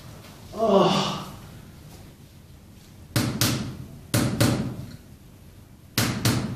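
A green rubber mallet striking a tool held against the sole of the heel in percussive treatment for a heel spur: six sharp knocks in three close pairs. About a second in, before the strikes, a person cries out briefly.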